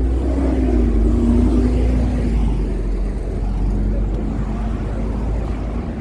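Road vehicle engine running close by on the street: a loud, steady low rumble with an engine hum that wavers in pitch during the first two seconds.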